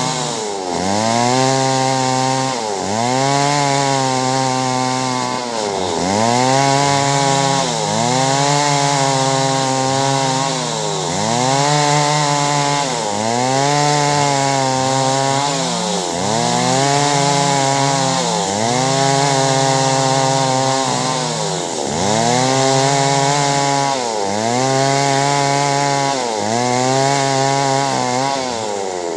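Two-stroke chainsaw running under load, cutting clove-tree wood. Its engine pitch dips and recovers about once every two seconds.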